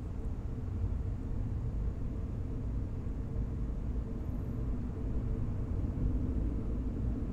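A State Railway of Thailand rapid train rolling slowly into a station, heard from an open carriage window: a steady low rumble of the carriage running on the track.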